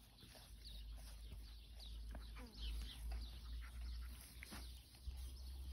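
Faint, scattered high chirps of small birds over a steady low rumble.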